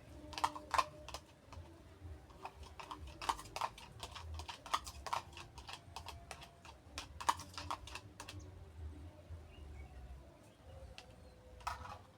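A rapid, irregular series of sharp knocks or clicks, many in a row, stopping about two-thirds of the way through, with one more short cluster near the end.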